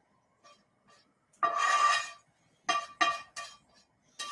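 A spatula scrapes a frying pan and knocks it against a stainless steel bowl, emptying cooked onion and pepper mixture out of the pan. A longer scrape about a second and a half in is followed by three quick knocks, each ringing with the same metallic tone.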